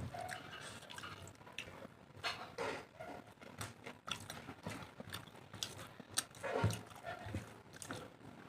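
A person eating rice and curry close to the microphone: wet chewing and lip-smacking, with irregular mouth clicks.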